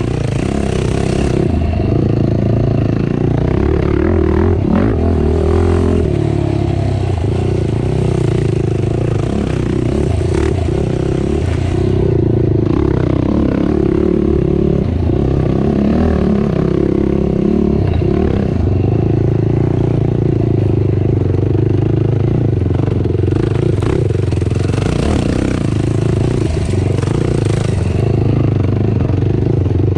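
Racing ATV (quad) engine running hard under load, its pitch rising and falling with the throttle, with frequent knocks and rattles from the machine.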